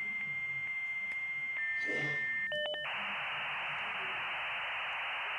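Dial-up modem handshake heard at telephone bandwidth. A steady high answer tone clicks about every half second, a slightly lower tone follows, and a short pair of tones comes about two and a half seconds in. The rest is an even hiss of data noise.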